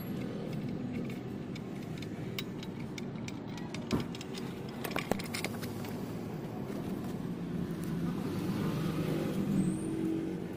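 A steady low background rumble with a few sharp clicks about four to five seconds in.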